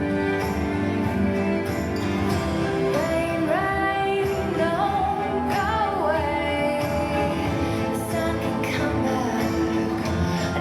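Recorded music for a lyrical dance routine, a song with sustained instrumental accompaniment. A melodic vocal line comes in a few seconds in.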